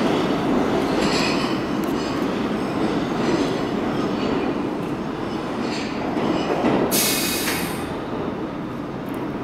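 Bombardier-built R142 subway train pulling away along the track, its wheels and motors rumbling steadily and slowly fading. There is a brief sharp high-pitched burst about seven seconds in.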